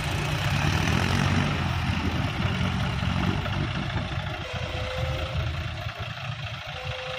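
John Deere 5055E tractor's three-cylinder diesel engine running steadily as it comes down off a heap of earth hauling a loaded trolley. The engine note is strongest in the first few seconds and eases off after that.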